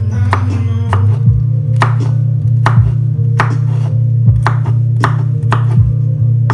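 Rap music with a heavy, steady bass line and sharp drum hits, over a chef's knife chopping garlic cloves on a bamboo cutting board.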